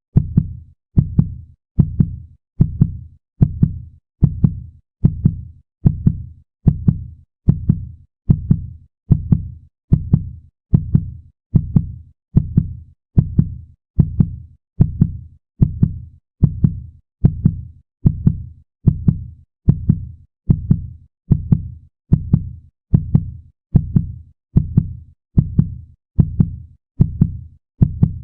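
Heartbeat sound effect: a steady, quick double thump (lub-dub) repeating a little over once a second, deep and dull.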